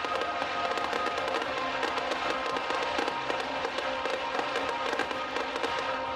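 Fireworks crackling and popping in rapid, dense bursts over steady music, the crackle thinning out near the end.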